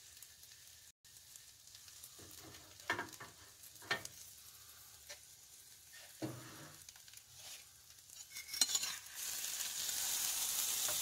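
An omelet sizzles faintly in a stainless steel frying pan on a butane camp stove, with a few scrapes and taps of a metal spatula against the pan. Near the end a louder, steady hiss comes in.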